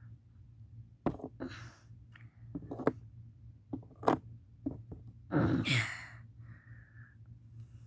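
Scattered sharp knocks and clicks of hands handling and pressing cardboard craft pieces close to the microphone. About five and a half seconds in comes the loudest sound, a short, loud breathy burst from the person.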